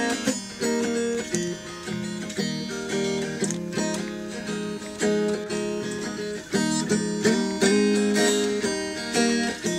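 Solo guitar playing slow, ringing picked and strummed chords that change every second or so.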